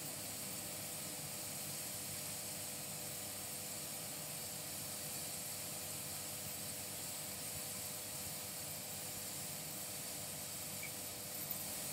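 A slow, steady exhale into a KETONIX breath ketone analyser, heard as a faint, even hiss.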